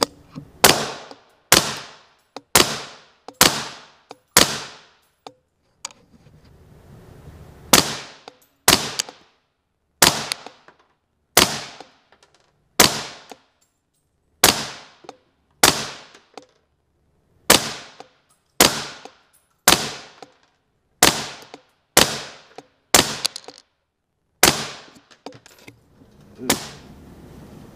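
Suppressed 5.56 AR-pattern short-barreled rifle with a Huntertown Arms Kestrel suppressor firing about twenty single shots at roughly one a second, with a pause of about three seconds after the first five. Each report rings on in the concrete lanes of an indoor range.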